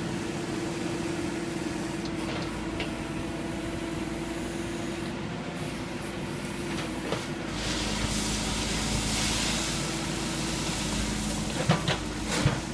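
Backhoe engine running steadily with a constant hum. About halfway through, a hiss swells for a few seconds, and a few sharp knocks come near the end.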